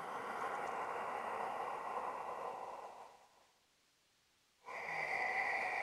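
A man's slow, deep, audible breathing: a long inhale of about three seconds, a held pause of over a second with nothing heard, then a long exhale starting near the end.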